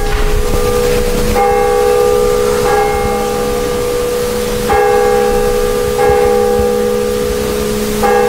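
Church bell tolling: a series of strokes about every one and a half to two seconds, each ringing on long under the next.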